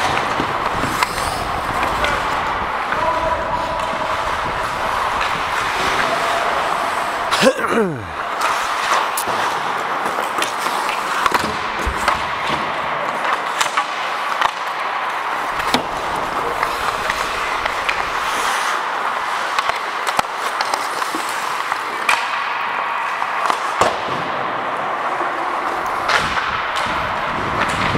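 Ice hockey play close up on the ice: skate blades scraping and carving the ice in a steady hiss, with frequent sharp clacks of sticks and puck.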